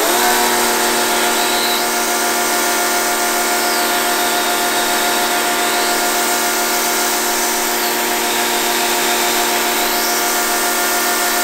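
Muc Off electric pressure washer running with the trigger held: a steady motor whine over the hiss of the water jet spraying a mountain bike.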